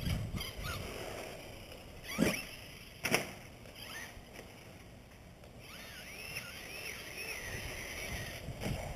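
Traxxas Slash 2WD RC truck running, its electric motor whine rising and falling with the throttle, with two sharp knocks about two and three seconds in.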